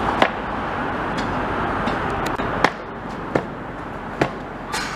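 Outdoor street noise, a steady rush of passing traffic that fades away about halfway through, with a run of sharp, uneven knocks roughly once a second.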